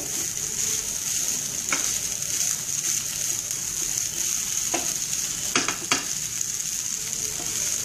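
Wooden spatula stirring basmati jeera rice in a hot non-stick pan, with a steady sizzle of the rice frying and a few sharp taps of the spatula against the pan, two of them close together past the middle.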